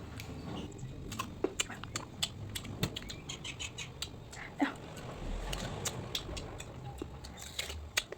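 Close-up eating sounds: someone chewing green mango with syrup, with irregular wet clicks and lip smacks.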